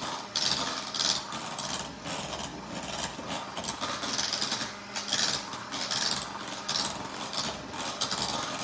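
Electric hand mixer running, its beaters whipping instant vanilla pudding and whipped topping in a bowl, the sound swelling and dipping as the beaters move through the mixture.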